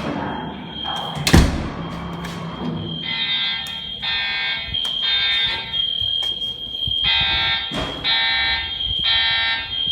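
Building fire alarm sounding: a steady high-pitched tone under horn blasts that pulse three at a time, about one a second, then pause, which is the temporal-three evacuation signal. A loud thud, like a door slamming, comes about a second and a half in.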